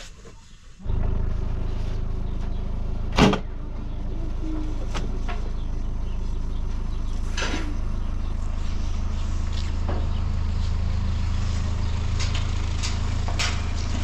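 An engine running at a steady idle, a low even hum that begins suddenly about a second in. A single sharp knock comes about three seconds in, with a few lighter clicks later.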